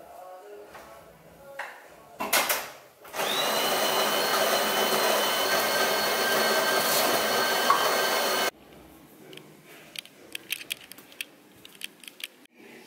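Built-in grinder of an automatic bean-to-cup espresso machine grinding beans for about five seconds. Its whine rises quickly at the start, holds steady, then cuts off suddenly. A brief clatter comes just before it.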